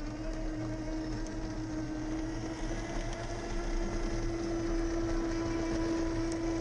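A Heng Long 1:16 Challenger 2 RC tank driving and turning: a steady, engine-like drone with one constant tone and a low hum throughout.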